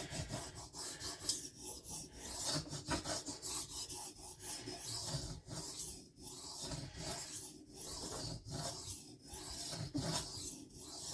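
A steel knife edge drawn in repeated strokes across a wet diamond sharpening plate, a steady scraping hiss broken by short pauses between strokes.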